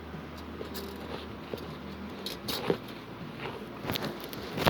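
A low electrical hum that fades out about two seconds in, with scattered light clicks and knocks of something being handled, and a sharper click near the end.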